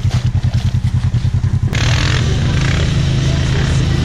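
Side-by-side engine idling with an even, rapid pulsing. A little under two seconds in, it gives way to a steady engine drone with rushing noise from a side-by-side driving along a muddy trail.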